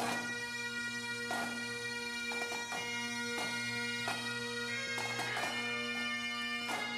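Bagpipes playing a slow tune over their steady drone.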